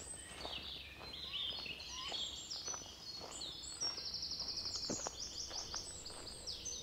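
Songbirds singing: quick chirps and runs of falling notes, with a fast high trill about four seconds in. A few faint clicks sound under the song.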